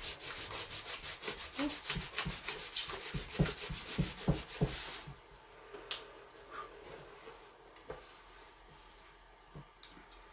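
Hand sanding with sandpaper: brisk, even back-and-forth strokes that stop about halfway through, followed by a few faint taps.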